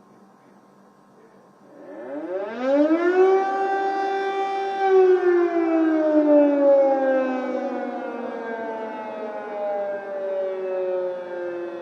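Air-raid warning siren winding up: after about two seconds of faint hiss it rises quickly in pitch, holds, then slowly falls away. It sounds the alert of an air attack.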